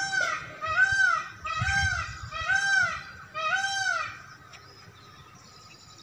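An animal calling: five loud calls in a row, each rising and falling in pitch, about one a second; the calls stop about four seconds in.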